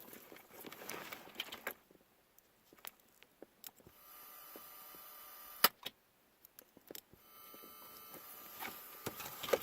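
Faint high-pitched whine from the car's speakers, several steady tones at once, fed through an aftermarket amplifier adapter with only ignition and ground connected. It comes in two stretches, about four seconds in and again about seven seconds in, with a sharp click between. It is an unwanted noise that the owner puts down to a bad amp adapter.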